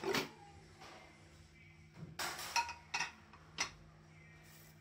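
Metal lid being lifted off an aluminium pot of popcorn once the popping has stopped: a knock at the start, a cluster of clanks about two seconds in, then two more sharp clinks.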